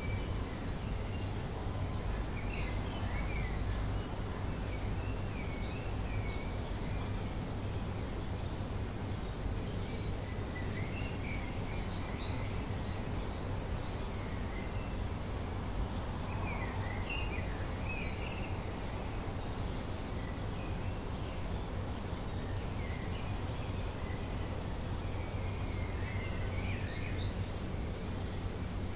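Dawn chorus of garden birds: several birds singing and calling over one another, with a short dry rattling call about halfway through and again near the end. A steady low rumble runs underneath.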